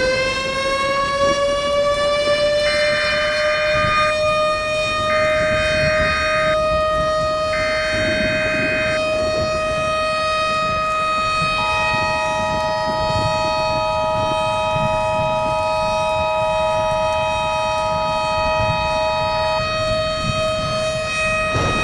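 Civil defense siren winding up in pitch and then holding a steady wail. Over it come three short data bursts of an EAS alert header, then the two-tone EAS attention signal for about eight seconds.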